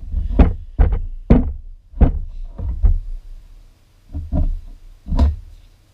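Hammer driving a punch against a universal joint on a VP Commodore driveshaft, about seven irregular dull metal knocks, working its retaining rings free.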